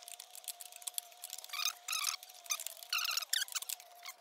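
A 21 mm flare-nut flex wrench is turning a ball joint nut loose a little at a time, making light metal clicks. Two short bursts of squeaky chirps come about one and a half and three seconds in.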